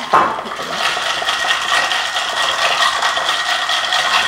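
Ice cubes clinking and rattling against a glass jar as iced coffee is stirred with a long straw, a steady run of small clinks with a sharper clink just after the start.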